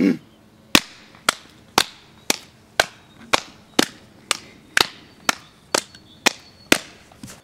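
Two people slapping their hands together in a patty-cake style clapping routine: about thirteen sharp, evenly paced slaps, roughly two a second.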